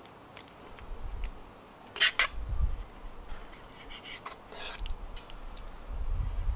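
Metal fork clinking and scraping against a metal bowl as steak slices are moved, with two louder clatters about two seconds in and again near five seconds. A bird chirps a few times about a second in.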